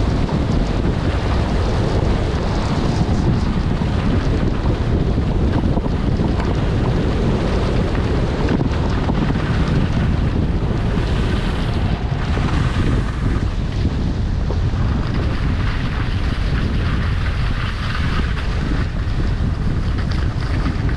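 Wind buffeting the microphone of a camera carried by a downhill skier, with skis hissing over the snow beneath. The hiss swells now and then.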